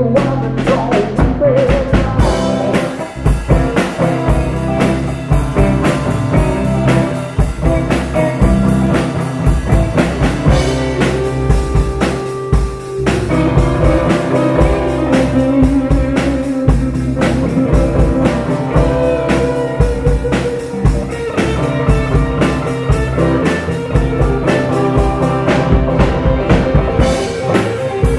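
A blues band jamming: acoustic and electric guitars over electric bass and a drum kit keeping a steady beat.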